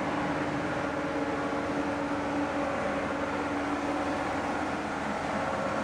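Steady machinery din in a superyacht's engine room underway, from running diesel engines and auxiliary plant: a dense hum with several steady tones, one of which fades out about two and a half seconds in.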